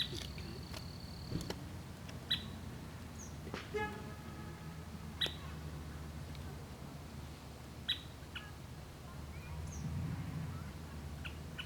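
Lakeside ambience: a few short bird chirps spread out, with one quick rapid call about four seconds in, over a low steady rumble.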